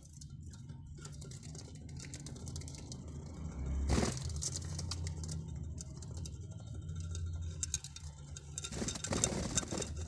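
Budgerigars shuffling in a nest box: scattered scratching and rustling of claws and feathers, over a low steady hum, with a thump about four seconds in.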